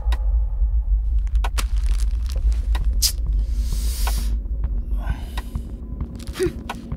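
Tense film background score: a deep, steady low drone with a few sharp hits, and two brief hissing swells partway through.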